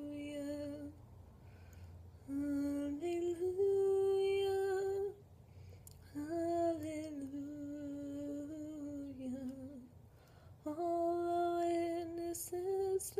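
A woman singing solo and unaccompanied, holding long notes in separate phrases with short breaths between them.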